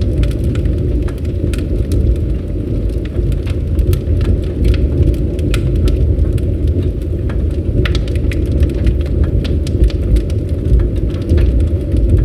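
Campfire burning: a steady low rushing rumble of the flames with frequent sharp crackles and pops of the wood.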